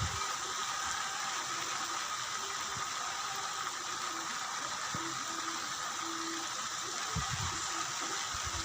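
Steady rush of running water, even throughout, with a brief low rumble about seven seconds in.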